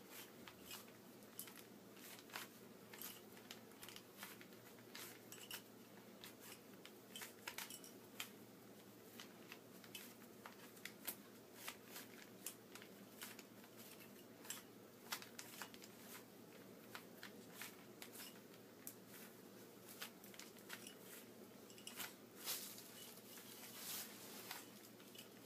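A Rubik's Cube being scrambled by hand: its plastic faces turned again and again, a faint, irregular stream of quick clicks and rattles.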